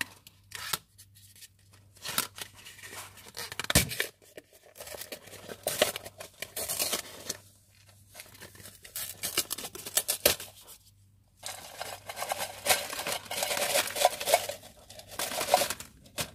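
Foil peel-off seal being torn back from the rim of a crisp canister, crackling and tearing in short bursts with a few sharp clicks. In the second half, a longer run of dense crackling and rattling as the sweet potato crisps are tipped out of the canister onto a table.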